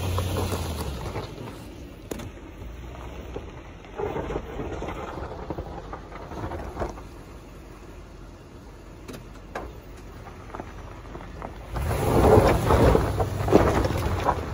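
A Toyota Sequoia rolling slowly over a dirt and gravel trail, heard from outside the driver's window: tyres crunching over loose stones with scattered sharp pops of gravel and a low engine hum. A louder rush of noise comes in near the end.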